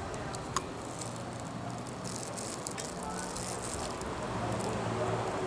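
Peanut shells being cracked and picked apart by hand: a sharp crack about half a second in, then a run of fine, dry crackling from about two to three and a half seconds.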